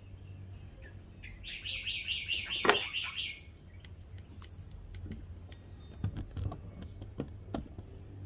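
A bird calling in a rapid chattering series of high notes, about five a second, for about two seconds, with a sharp knock in the middle of it. Scattered short clicks and taps follow over a steady low hum.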